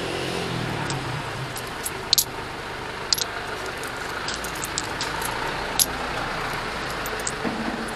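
Motorcycle riding in city traffic: steady engine and road noise, with a few sharp ticks or rattles about two, three and six seconds in.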